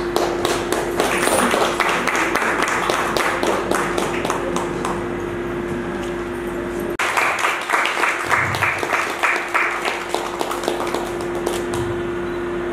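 Audience applause with a steady hum underneath. About halfway through the sound changes abruptly, and the clapping falls into an even beat of about three claps a second.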